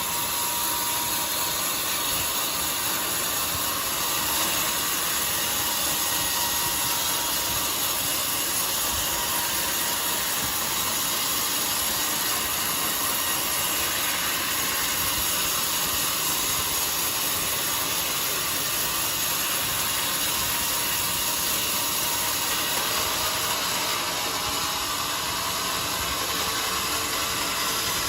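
Band sawmill running steadily, its blade and motor making an even, unbroken noise, typical of the band saw cutting through a jackfruit log.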